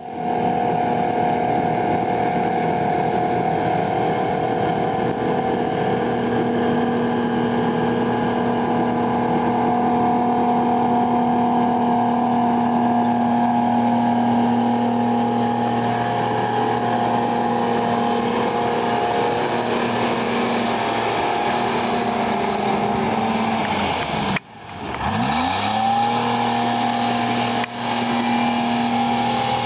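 Diesel engine of an FMC tracked log skidder running steadily at working speed. About 24 seconds in the sound drops out for a moment, and the engine's pitch then climbs back up to a steady run.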